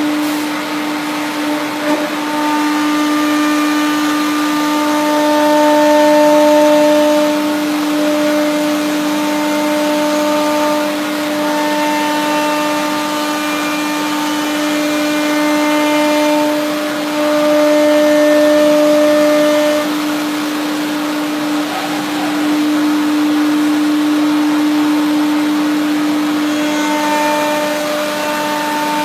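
Biesse Rover B 4.40 FT CNC router running, its spindle holding a steady high whine as the head machines a panel, with higher tones switching on and off. It gets louder twice, around a fifth and two-thirds of the way through.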